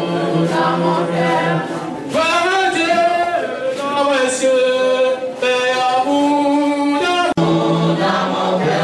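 A group of voices singing unaccompanied, with long held notes. There is a brief dropout about seven seconds in, and then the singing continues.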